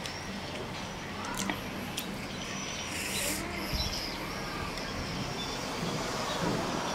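Eating noodle soup with a metal spoon: a couple of sharp clicks of the spoon against the steel tray and glass dip bowl, and a short slurp about three seconds in.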